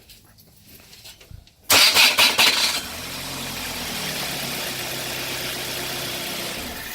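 A car's starter motor cranks the engine with a loud burst lasting about a second, then the engine catches and settles into a steady idle. The loud start is presented as the sound of a failing starter motor.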